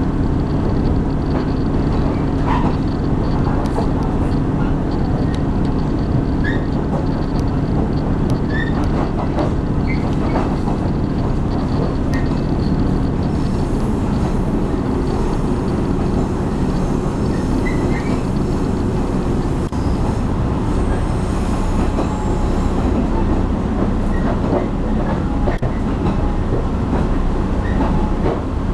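Diesel passenger train of the Jiji Line heard from inside the carriage while running: a steady rumble of wheels on rail with a low engine hum, and short faint squeaks scattered through it.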